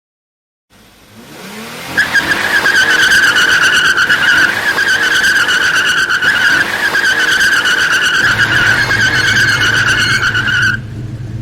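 Car tyres screeching in a long skid: a loud, slightly wavering high squeal held for about nine seconds that cuts off abruptly, with a low rumble joining near the end.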